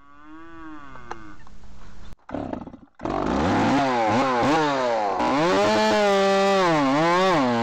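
Stihl MS270 two-stroke chainsaw, ported in its lower transfers, revved up about three seconds in with quick throttle blips, then held near full throttle with its pitch dipping and recovering as it works through the wood. A falling, fading tone is heard in the first second or so before it.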